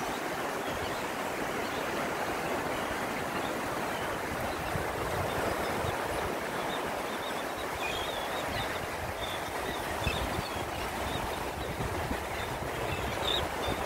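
Steady wash of surf on a Gulf of Mexico beach, an even rushing noise with no breaks.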